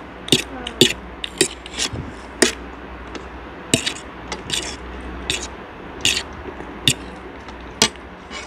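Forks and spoons clinking and scraping against a ceramic plate of instant noodles, in short, sharp, irregular clicks.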